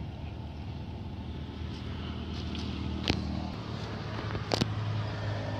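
A motor engine running steadily, a low hum whose pitch shifts a little about three and a half seconds in, with two sharp clicks over it.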